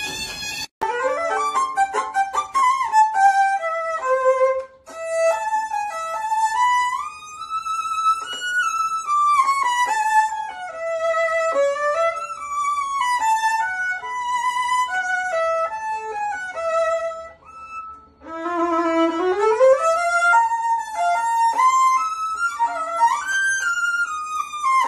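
Solo violin playing a melody with vibrato and slides between notes, breaking off briefly about five seconds in and again near eighteen seconds before a long rising slide. In the first second a snatch of guitar-backed music is cut off abruptly.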